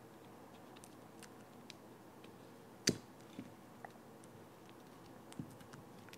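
Light handling of a chrome beltline molding assembly, with small scattered clicks as tape is picked off its end and one sharp click of metal about three seconds in.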